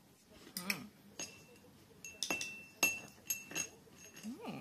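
A small metal spoon clinking against a ceramic bowl as a child scoops food, a run of light, irregular clinks, several with a short ring. A brief child's vocal sound comes about half a second in and again near the end.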